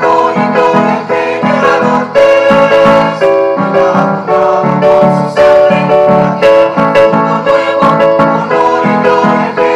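A mixed choir singing a song, backed by a keyboard playing steady rhythmic chords.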